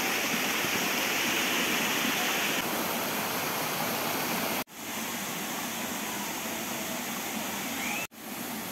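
Steady rush of flowing water. It cuts out sharply for a split second twice, about halfway through and near the end.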